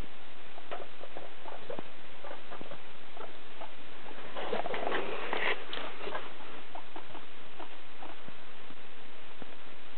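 Guinea pigs moving about on hay and fleece in their cage: scattered light ticks and small rustles over a steady hiss, with a denser rustle of hay about halfway through.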